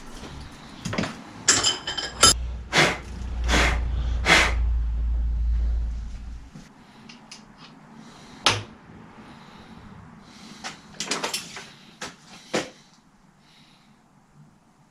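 Scattered knocks, clicks and rustling of things being handled and moved about, with a deep rumble for the first few seconds.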